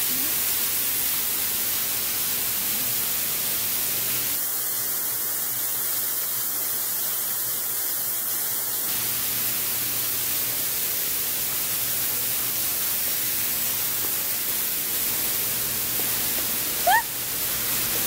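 Indoor waterfall splashing down a stone wall, a loud, steady rushing hiss. Near the end a short rising squeak cuts in once.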